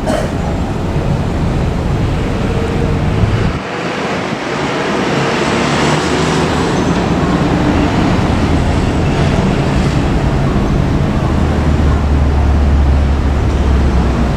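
Rumble of an approaching JR Freight EF510 electric locomotive and its freight train, growing steadily louder, with a strong low drone building near the end.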